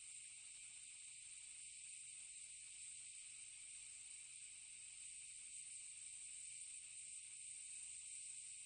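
Compressed air slowly leaking from an air tank: a steady, even hiss.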